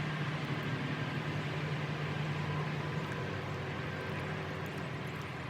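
Boat motor running steadily: a low, even hum under a constant hiss, starting and stopping abruptly at edits.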